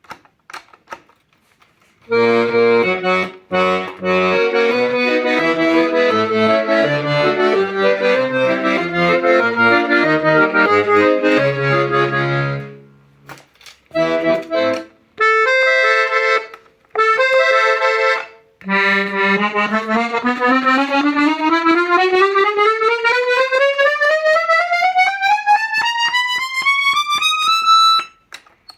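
Hohner Concerto II piano accordion being played: about ten seconds of chords over changing bass notes, then a few short chords with gaps between them. From about nineteen seconds in comes one long rising scale, climbing steadily from low to high.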